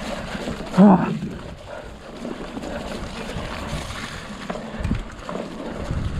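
Mountain bike rolling down a dirt trail: a steady rumble of wind on the microphone and tyre and frame rattle, with one short voiced cry from the rider about a second in.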